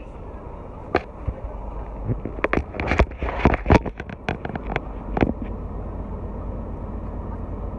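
Steady low rumble of a car heard from inside the cabin, with a run of sharp clicks and knocks from handling between about one and five seconds in.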